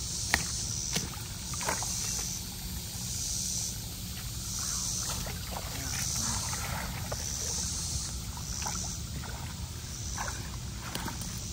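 Water splashing and sloshing as storm debris is pulled by hand from a clogged culvert, over the steady rush of the stream, with scattered short knocks. A high buzzing pulse repeats about once a second.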